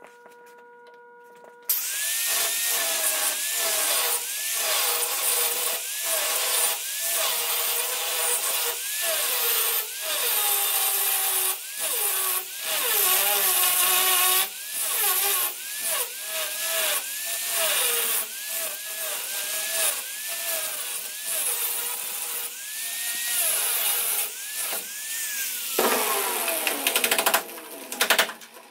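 Angle grinder with a stainless-rated wheel grinding the heads off rusted truck-bed bolts: a harsh grinding hiss, the motor's whine sagging under load and climbing back again and again. It starts about two seconds in and spins down with a long falling whine near the end.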